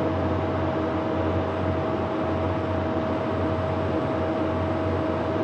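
Steady hum of a CNC turning lathe standing with its spindle stopped, with a constant mid-pitched whine over it.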